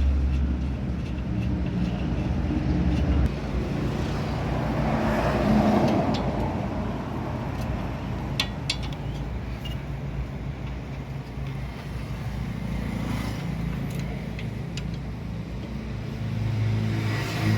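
Motor vehicle engine and road traffic, with a low engine hum at the start and again near the end. A few light metallic clinks come around the middle.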